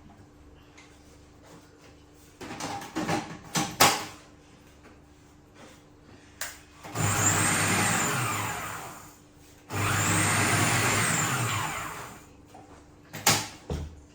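Electric blender motor run in two pulses of about two and a half seconds each, whining up to speed and winding down, chopping ugu (fluted pumpkin) leaves. Clattering knocks come before and after from handling the jar.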